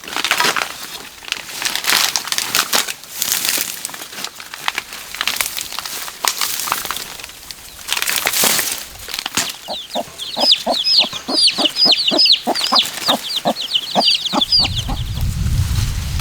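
Irregular rustling and flapping noises, then a fast run of short bird calls, about five a second, lasting several seconds. A low steady hum comes in near the end.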